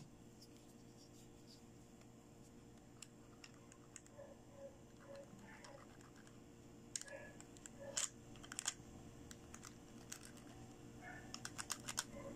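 Light plastic clicks and taps as a pink plastic toy dental tool knocks against the plastic teeth of a toy dental model. The taps are scattered and sparse, with a quick cluster of several clicks near the end, over a faint steady hum.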